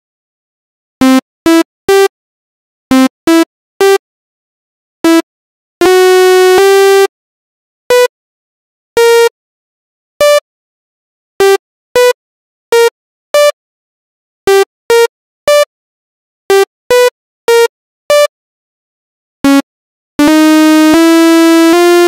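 Short single synthesizer notes from FL Studio Mobile's piano roll, sounding one at a time at irregular intervals with dead silence between them, as notes are entered and previewed. Twice, about six seconds in and again near the end, several notes sound together as a chord for a second or two.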